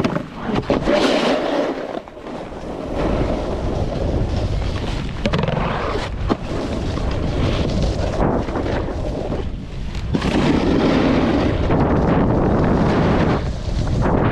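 Wind rushing over the camera microphone while snowboarding downhill, with the board's steady low rumble over the snow; it dips briefly and then runs louder and steadier from about two seconds in.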